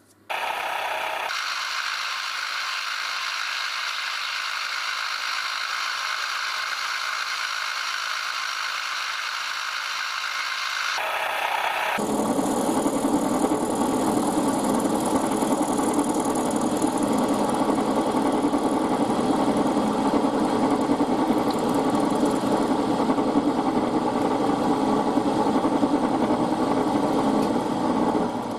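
Milling machine running, its end mill cutting into the wall of a square metal tube clamped in the vise: a steady machining noise. About 12 seconds in it shifts abruptly to a louder, fuller sound.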